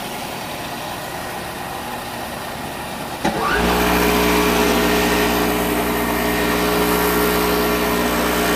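Robot Coupe Blixer 45 chopper/mixer: a steady noisy whir, then a click about three seconds in, after which its motor jumps to a louder, steady hum.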